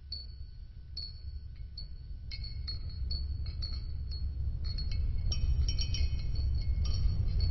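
High chime-like pings and clinks, sparse at first and coming thicker and faster, over a low rumble that grows steadily louder.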